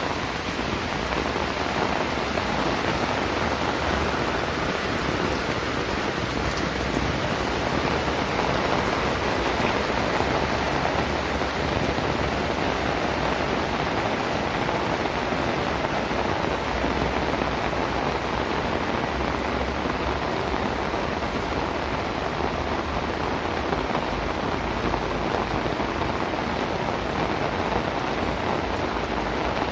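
Heavy rain falling steadily, a dense, even hiss without a break.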